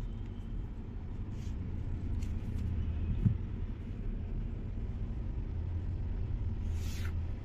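Steady low rumble underneath, with faint taps, a soft knock about three seconds in and a short scraping rustle near the end as a long ruler and measuring tape are handled on cloth.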